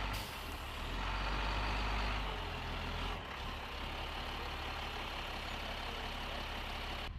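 Diesel engine of an M142 HIMARS rocket launcher truck running at low speed as the heavy six-wheeled truck rolls forward, a steady low drone with a broad hiss over it; the low drone shifts about two seconds in.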